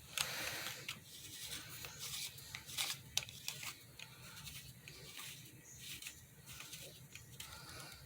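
Rubbing and scattered light clicks from hands handling a small LED flashlight and fitting its parts together.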